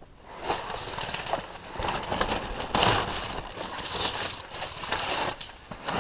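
Footsteps crunching and rustling through dry leaves and undergrowth in an uneven rhythm.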